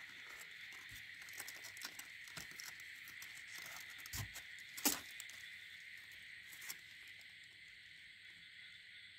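Scratchy rustling and small clicks of a glove and kittens moving against the cardboard of a box, with a soft thump about four seconds in and a sharper knock just before five seconds. The rustling thins out after about seven seconds, under a steady high background hiss.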